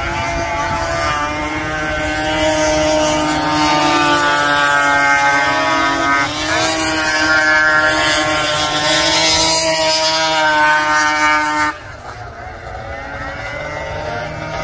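Racing snowmobile engines running hard on an ice oval, their high whine slowly rising in pitch as the sleds accelerate down the straights. About twelve seconds in the sound drops suddenly to a quieter, lower engine drone.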